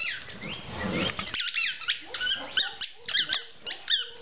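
Dog chewing a squeaky toy ball, giving a quick run of short, high squeaks, about three a second, from about a second and a half in.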